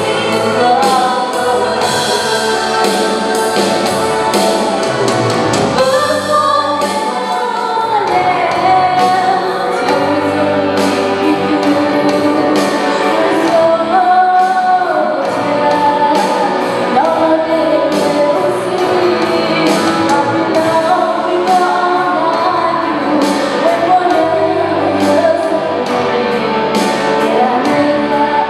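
Live gospel worship song: a woman sings lead over a band of drum kit, bass and guitars, with cymbal strokes keeping a steady beat.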